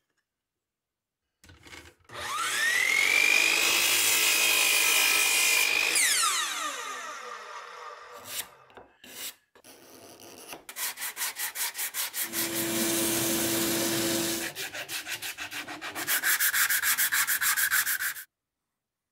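A power tool's motor whines up to speed, runs steadily for a few seconds and winds down. Later, a steel card scraper works a wooden clamp part in quick rhythmic strokes.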